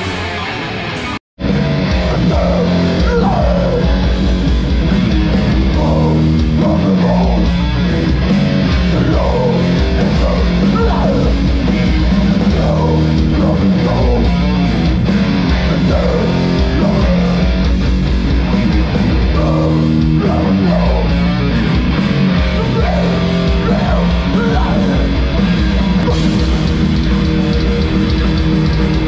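A heavy metal band playing live and loud: distorted electric guitars over bass and drums, heard from the crowd. The sound cuts out for a moment about a second in.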